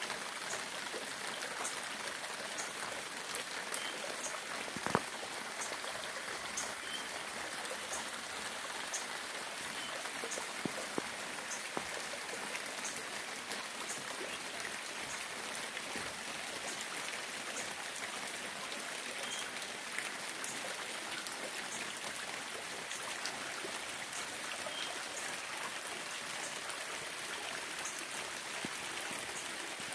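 Steady rain falling, with many separate drops ticking through the hiss and one louder drip about five seconds in.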